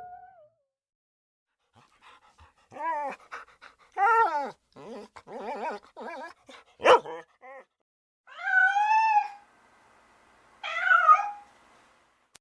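A dog yipping and whining: a run of short, high yelps, then two longer whines near the end.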